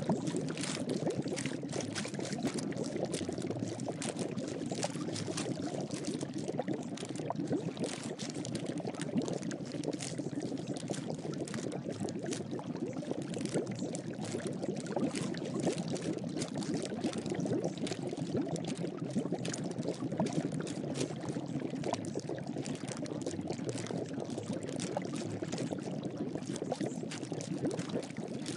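A steady sound of pouring or running water with a fine crackle, the background track of a subliminal recording.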